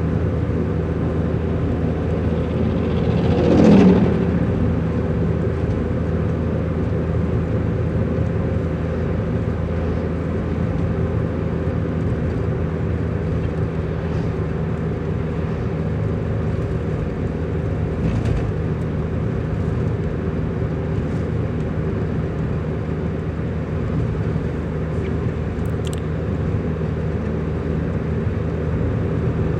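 Steady drone of a road vehicle's engine and road noise. About four seconds in, a passing vehicle's whoosh falls in pitch and briefly rises above it, and there is a short click near the end.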